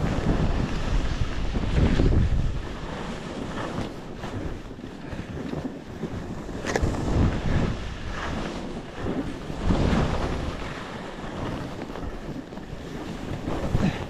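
Wind rushing over the microphone of a skier's camera, with skis hissing and scraping over snow in swells every few seconds as the skier turns. There is one sharp crack about seven seconds in.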